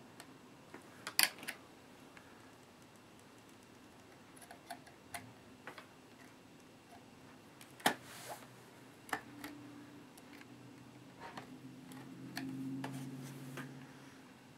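Scattered small clicks and taps of tools and tiny parts being handled inside an open laptop, with two sharper clicks about a second in and near eight seconds in. A low hum comes in over the last few seconds.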